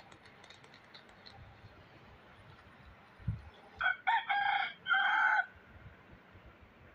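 A rooster crowing once, about four seconds in: a crow of about a second and a half in four parts, the last two held longest.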